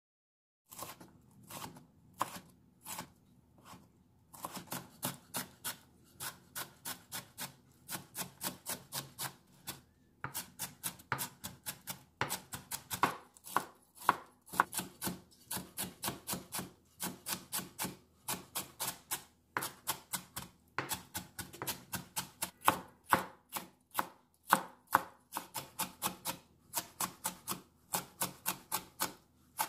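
Chef's knife dicing bell peppers on a wooden cutting board: a few separate chops start about a second in, then a steady, rapid run of knife strikes on the board at about three a second.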